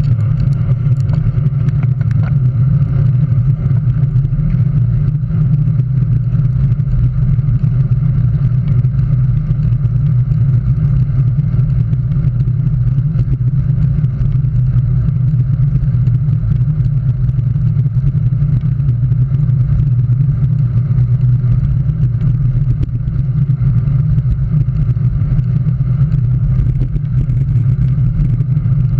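Steady rush of wind and road rumble on a handlebar-mounted camera on a road bike moving at speed, a constant low noise with no breaks.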